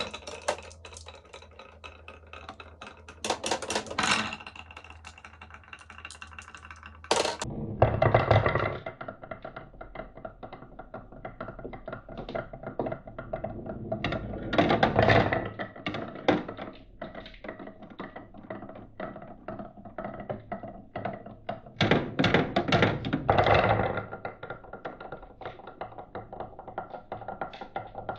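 Glass marbles rolling and clicking down a marble run's slopes, in rapid runs of small clicks and taps. Louder bursts of clattering come several times as marbles drop and knock along the track.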